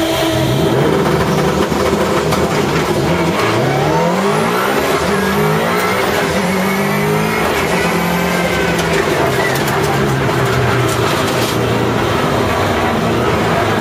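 Subaru Legacy's engine heard from inside the cabin, pulling hard, its pitch climbing in several steps through the gears and then dropping and levelling off as the car is driven through a handling course.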